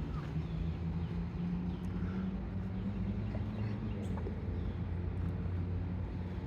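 A low, steady engine drone with a slowly drifting pitch and faint chirps above it.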